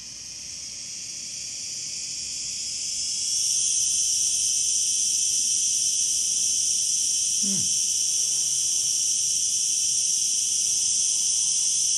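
Male cicada singing: a loud, steady, high-pitched buzzing drone that swells over the first three seconds or so and then holds level.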